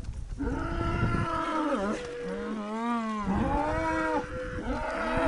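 Cattle bellowing: several long, pitched calls one after another, some overlapping, each rising and falling in pitch.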